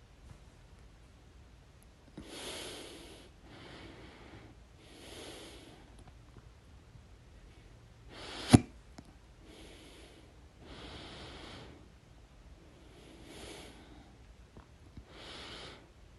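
A person's repeated audible breaths, with one sharp, loud hiccup about halfway through.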